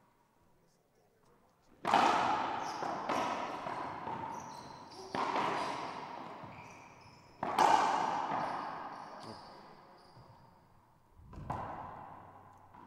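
Racquetball rally in an enclosed court: the hard rubber ball is struck by racquets and smacks off the walls, giving four sharp cracks over about six seconds, each with a long echoing tail. A softer, duller thud comes near the end.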